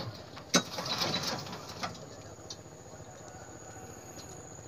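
Gear being handled in the bow of a small boat: a sharp knock against the boat about half a second in, a second of rustling, and a lighter knock near the two-second mark, then a quiet steady background with a faint high whine.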